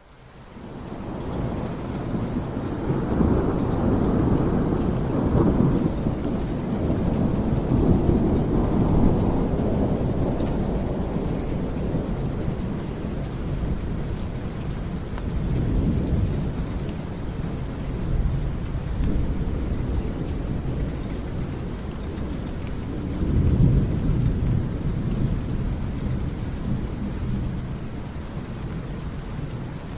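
Recorded rainstorm: steady rain with deep rolling rumbles of thunder that swell and fade several times. The sound fades in from silence over the first couple of seconds.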